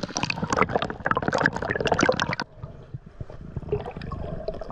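Water splashing and gurgling at the surface as a snorkeler dips under. About two and a half seconds in it gives way to quieter, muffled underwater noise with scattered faint clicks.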